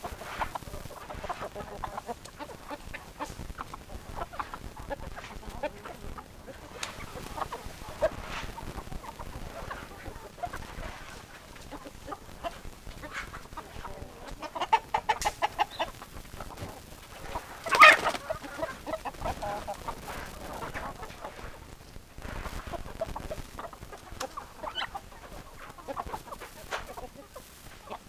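Chickens clucking, with short calls coming one after another. About halfway through there is a quick run of rapid clucks, and a little later one loud short call stands out above the rest.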